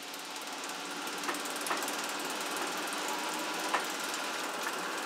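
Gear-and-chain machinery running: a steady mechanical hum with dense fast ticking and rattle from the gears and chain, and three sharper clicks, two close together early and one about halfway through. It swells up over the first second or so.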